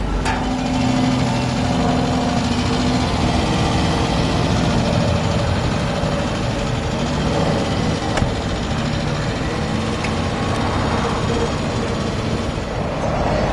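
Renault Le Car's small four-cylinder engine running steadily at low speed as the car rolls slowly past.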